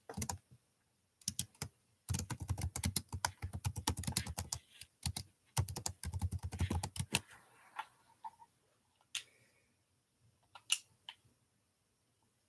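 Computer keyboard keys pressed in fast, dense runs for about six seconds, then a few scattered single key presses.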